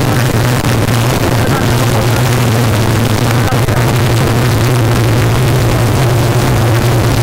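Rally car's engine running hard at fairly steady revs, heard from inside the stripped cabin, over a constant hiss of tyre and gravel noise from the dirt road.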